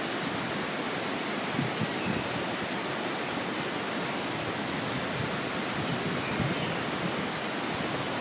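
Waterfall rushing with a steady, unbroken noise of falling water.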